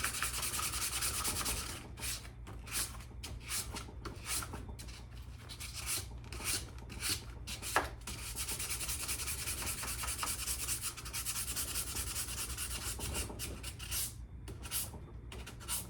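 Old steel axe head being hand-sanded with sandpaper on a block to take off rust: quick back-and-forth rubbing strokes. They run fast and unbroken at first and again from about eight to eleven seconds, slower and separate in between and near the end.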